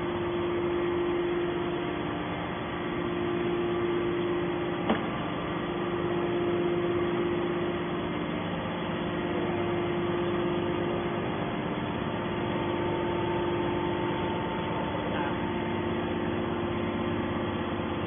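Steady hum of a hydraulic scrap metal baler's power unit running while the press stands still, with one sharp click about five seconds in.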